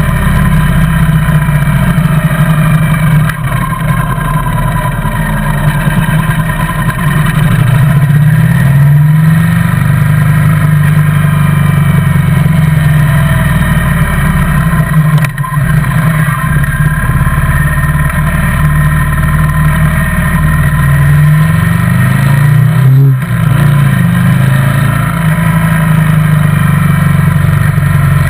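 Motorcycle engine running under way, its note rising and falling with the throttle, dipping briefly about halfway through and again near the end.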